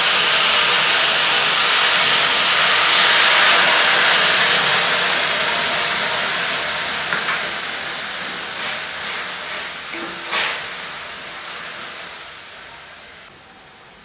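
Tamarind pulp hitting hot tempering oil in a kadhai: a loud steamy sizzle that dies away slowly as the liquid cools the oil. A single knock about ten seconds in.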